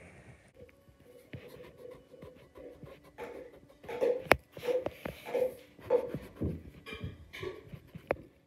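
Pencil eraser rubbing back and forth on drawing paper, in strokes about every half second that grow stronger in the second half, with a couple of sharp taps of the pencil on the paper.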